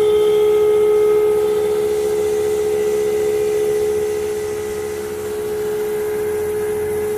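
Lloyd air conditioner running with a steady pitched hum, the abnormal noise it is being checked for. The hum dips slightly about four seconds in and comes back.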